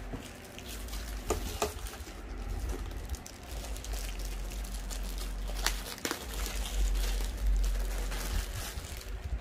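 Plastic wrapping crinkling and cardboard packaging rustling as packed parts are handled in a box, with a few sharp clicks and light knocks.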